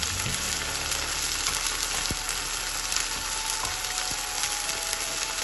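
Onion masala with freshly added tomato purée sizzling in hot oil in a pan: a steady crackling hiss of frying.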